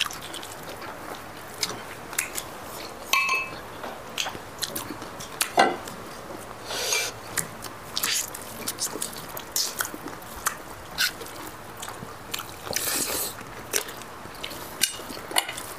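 Close-up eating sounds of several people eating chicken and rice by hand: irregular chewing, lip smacks and small clicks, some louder than others.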